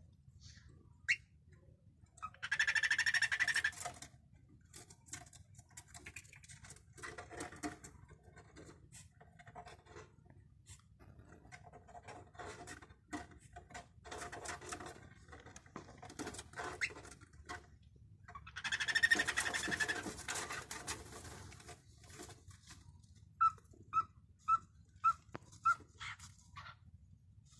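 Cockatiel calling: harsh, noisy screeches in two long bouts among scattered clicks and chirps. Near the end comes a run of six short whistled notes, about two a second.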